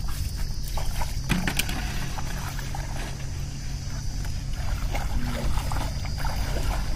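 Water sloshing and splashing as a raft of plastic cans is pushed off into a shallow pond and a person wades in after it, with a few hollow knocks from the raft about a second and a half in. Under it runs a steady low rumble.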